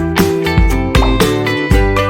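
Background music: an upbeat acoustic guitar track with a steady beat of about two beats a second.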